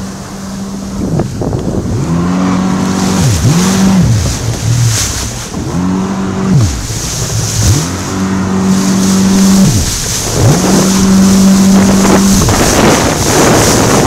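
Jet ski engine under way at speed, its pitch falling away and climbing back several times as the throttle is eased and reopened over the chop. Wind buffets the microphone and spray hisses alongside.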